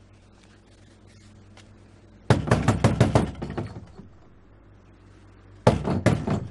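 Knocking on a wooden door: a quick run of about ten knocks, then a shorter run of four knocks about three seconds later.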